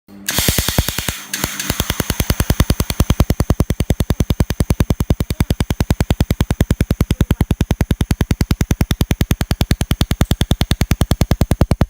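Pulsed laser welder firing on 1.2 mm stainless steel: a fast, even train of sharp cracks, about nine a second. A steady hum sits under the first second or so.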